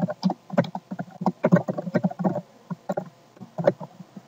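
Computer keyboard typing: a quick, uneven run of keystrokes, many clicks a second.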